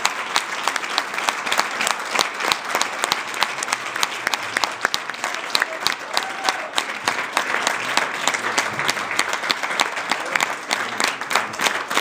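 Congregation applauding: many hands clapping in a dense, steady patter.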